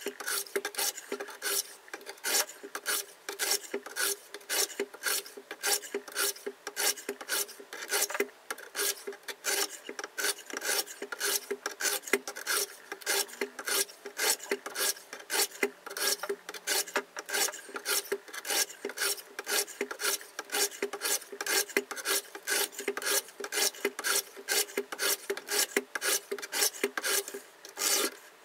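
KMFS Rival diamond sharpening plates rasping along both sides of a clamped folding-knife blade at once, in quick even strokes of about three a second.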